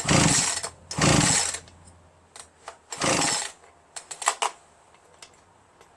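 Poulan Pro PR4218 chainsaw's recoil starter pulled three times, about half a second each, spinning the engine over without firing while its spark plug is out for a spark check. A few light clicks follow near the end.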